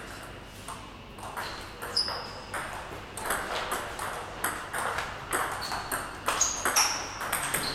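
Table tennis ball clicking off rubber paddles and bouncing on the table: a few scattered taps at first, then a quick rally of sharp clicks with short ringing pings from about three seconds in.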